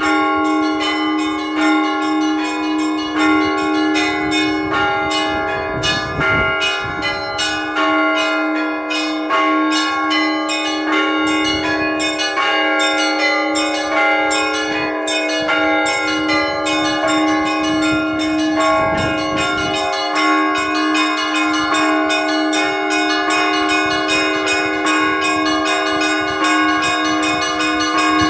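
Orthodox church bells rung by hand in a dense, fast peal: small bells struck rapidly over the steady ringing of a larger bell.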